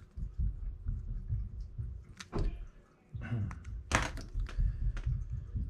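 Handling noise at a workbench: low, uneven bumps and rubbing with a few sharp clicks and taps as a grease syringe and small differential parts are moved about and set down, the loudest tap about four seconds in.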